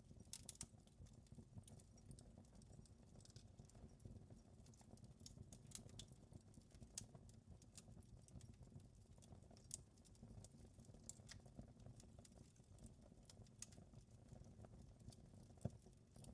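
Wood fire crackling quietly: irregular sharp pops and snaps over a faint low rumble, with one louder snap near the end.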